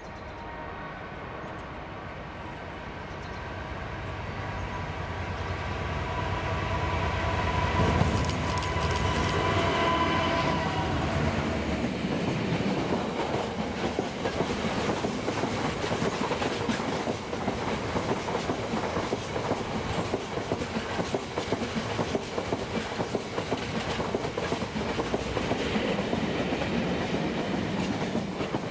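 Diesel-hauled freight train of open box wagons passing close by. The locomotive's engine grows louder to a peak about eight seconds in, then the long rake of wagons rumbles past, wheels clattering over the rail joints.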